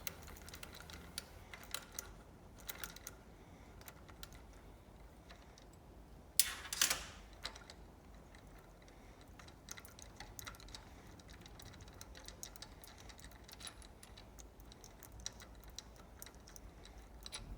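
Small pump valve parts being handled and taken apart: scattered light clicks and taps, with a louder clatter about six and a half seconds in.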